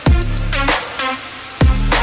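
Electronic music with a heavy bass drum whose pitch drops on each hit, and crisp hi-hat-like clicks between the hits.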